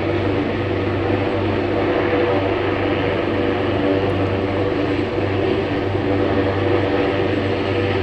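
Helicopter passing overhead: a steady engine and rotor drone.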